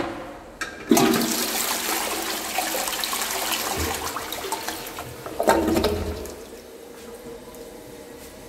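INAX 306 toilet flushing: a sharp click, then about a second in a loud rush of water swirling through the bowl, a second surge about five and a half seconds in, and the flow settling to a quieter steady run.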